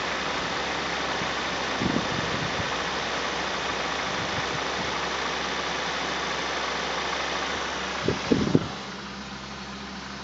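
Volvo V70 2.4 inline-five petrol engine running at idle with a knocking sound, which the owner thinks means the engine is not entirely healthy. A few louder thumps come about two seconds in and again near the end, after which the running sound gets quieter.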